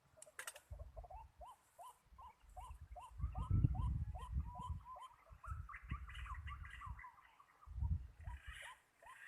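A bird calling a long, even series of short hooked notes, about three a second, over low rumbling handling noise, with a sharp click just after the start.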